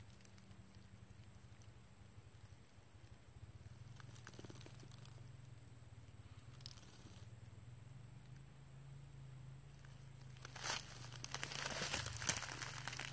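Faint quiet background with a thin steady high tone, then, about ten seconds in, a couple of seconds of crackling rustle in dry leaf litter.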